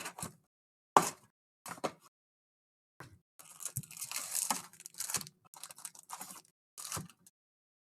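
Plastic shrink wrap on a sealed hobby box of trading cards being torn open and crinkled, in a series of short tearing and crackling noises with a sharp snap about a second in.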